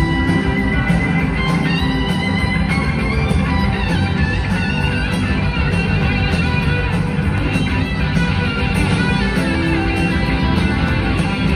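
A live rock band playing, with electric guitars over bass and drums, heard through the venue's PA from the audience. A lead guitar line slides between notes in the first few seconds.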